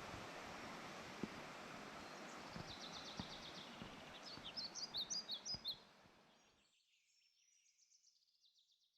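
Small birds chirping, with a quick high trill and then a run of separate chirps, over a steady outdoor rushing noise. All of it fades out about two-thirds of the way through, leaving only faint chirps.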